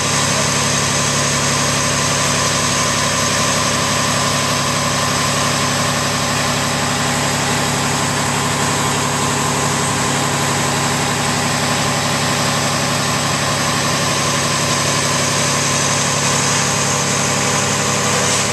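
Fire truck engine idling steadily, a constant drone that holds the same speed throughout.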